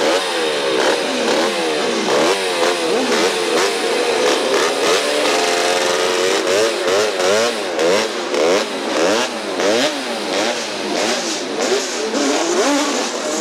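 Several race motorcycle engines revving together, their pitch rising and falling again and again as the throttles are blipped.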